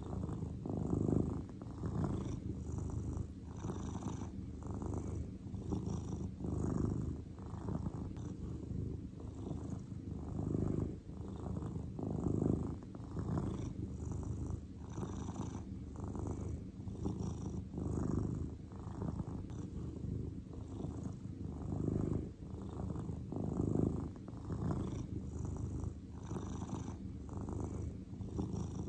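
Grey long-haired domestic cat purring steadily and contentedly, the low rumble swelling and easing in a regular rhythm with each breath.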